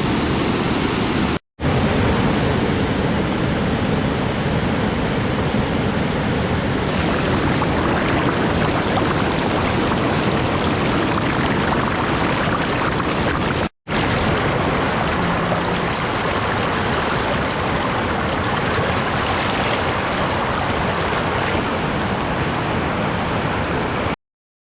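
Steady rushing of flowing water from a waterfall and river, an even loud roar with no distinct events. It drops out briefly twice and cuts off suddenly near the end.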